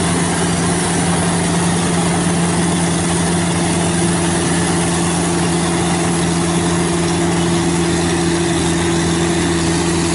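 Yamah DC105 Plus tracked rice combine harvester running steadily while cutting and threshing rice: a constant engine hum with an even din of machinery over it.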